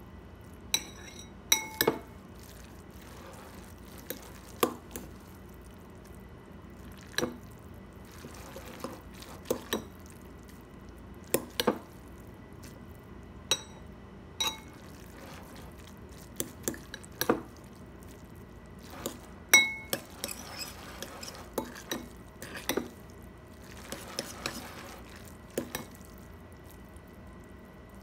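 A fork clinking and scraping against a ceramic bowl while mixing sauce-coated instant noodles: irregular sharp clinks every second or two, some ringing briefly, with softer scraping in between.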